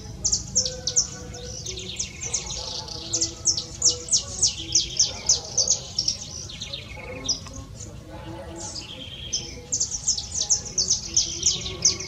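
A small songbird singing: long runs of rapid, sharp, high chipping notes, broken by a pause of about two seconds midway, then another run.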